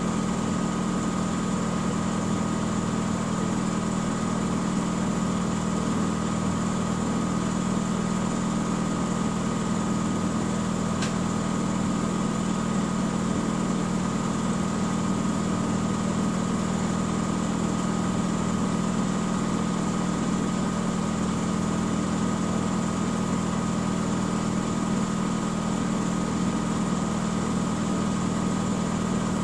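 Miele W 5963 front-loading washing machine spinning at a steady high speed, a constant drum-and-motor hum with a fixed high whine that neither rises nor falls. A single faint tick sounds about eleven seconds in.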